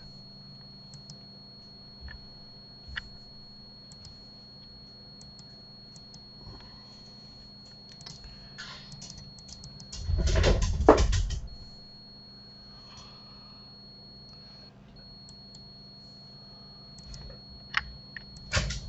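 Steady electrical hum with a thin high whine from the recording setup, broken by faint, scattered computer-mouse clicks. About ten seconds in, one loud, brief noise lasting about a second and a half stands out.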